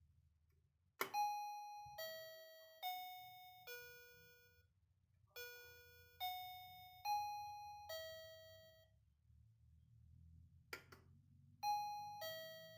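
Marlboze M7 wireless entry alarm doorbell playing an electronic chime melody: about eight clear notes, each fading away, starting with a click. Near the end, after another click, a new melody begins.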